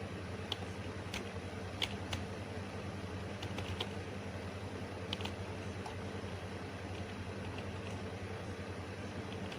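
Scattered clicks of typing on a computer keyboard, several in the first half and few later, over a steady low hum.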